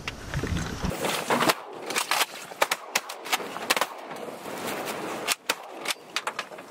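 Shotguns from at least two hunters firing a rapid, irregular string of many shots at a passing flock of ducks. A low rumble comes first, before the shots start in earnest about a second in.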